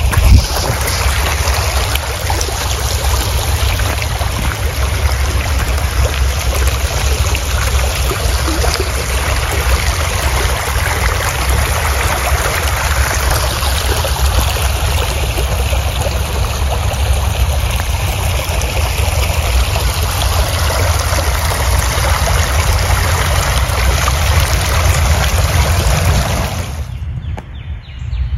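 Rainwater runoff flowing in a shallow channel over leaf litter and stones: a steady rushing trickle with a low rumble underneath. Near the end it changes abruptly to a quieter, duller flow.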